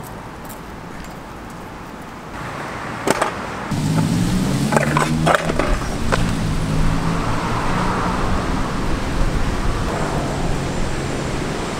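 Sharp knocks of a stunt scooter's deck and wheels hitting the concrete ledge and ground: one about three seconds in, then a quick cluster a second or two later. A loud steady low hum runs under them from about four seconds on.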